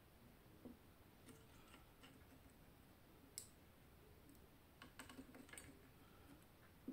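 Near silence with a few faint, sharp clicks of small side cutters and fingers working on wiring inside a radio's metal chassis; the sharpest click comes about three and a half seconds in, and a small cluster follows about a second and a half later.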